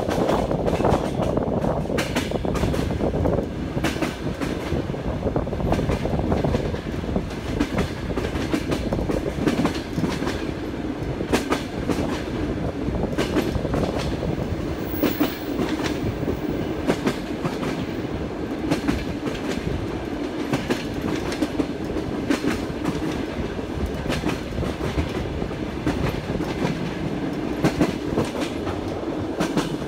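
Passenger train's wheels clattering over the rail joints with a steady rolling rumble, heard from on board the moving train.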